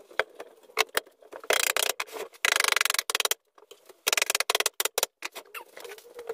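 Mallet knocking the glued finger joints of a wooden box together: a series of sharp knocks, some coming in fast runs.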